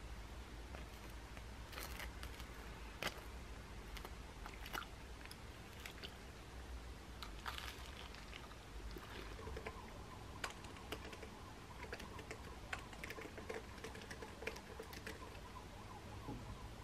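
Scattered small clicks and clinks of a metal spoon against ceramic bowls and toast during a meal, with chewing, then the light tapping of a laptop keyboard in the later part.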